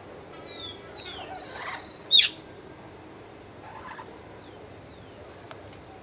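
Birds calling: two falling whistles, a short harsh buzzy call, then one loud, sharp call about two seconds in, with a few fainter whistles later.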